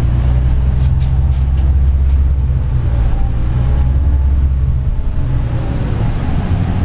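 New Flyer DE41-LF diesel-electric hybrid bus drivetrain running as the bus rides along, heard from inside the passenger cabin: a steady low rumble with a faint whine rising and falling midway, and a few light rattles in the first two seconds.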